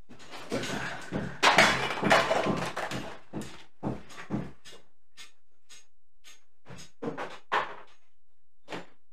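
A burst of clattering and thuds in a small room during an earthquake tremor as a person gets up from a desk chair and hurries off, loudest a second or two in. After that, a handful of separate knocks.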